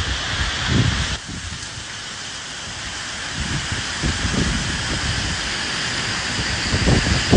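Steady rain hissing, with low rumbling gusts of wind swelling up now and then. The sound drops suddenly about a second in and slowly builds again.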